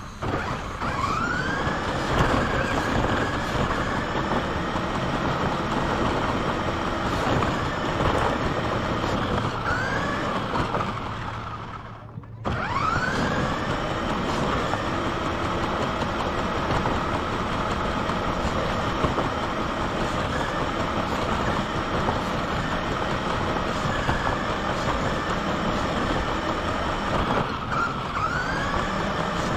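Radio-controlled car's motor whining under throttle, with tyre noise on concrete, heard from on board. The whine rises in pitch as it speeds up at the start and dips briefly around ten seconds in. It cuts out for about half a second around twelve seconds in, then spins up again, and rises once more near the end.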